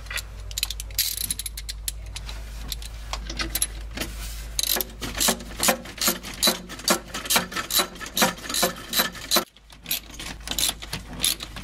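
Ratchet wrench clicking as its socket, on an extension, runs a nut onto the air filter housing cover. Sparse clicks at first, then a steady run of about two to three clicks a second from about halfway through, with a brief pause near the end.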